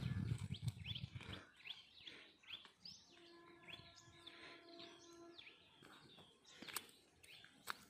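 Small birds chirping, many short rising calls in quick succession, over a low rumble that stops after about a second and a half. A steady held tone with overtones sounds for about two seconds in the middle, and a couple of sharp clicks come near the end.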